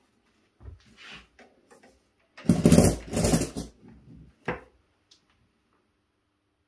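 Shirt fabric rustling as it is smoothed on the Singer ESP260T steam press, then a loud clatter as the press lid is pulled down by its handle and shut, and a sharp click about a second later.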